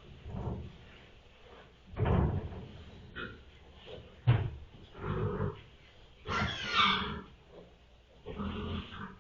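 Pigs in a farrowing pen: a gilt's short low grunts, repeated about every second or two, and a louder, higher-pitched piglet squeal about six and a half seconds in.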